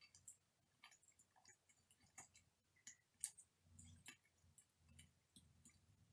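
Chopsticks clicking and tapping faintly and irregularly against a ceramic bowl and the Maltesers in it, with the sharpest click about three seconds in.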